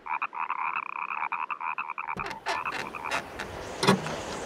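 Cartoon frog croaking: one rattling trill about two seconds long. A few sharp knocks follow, the loudest near the end.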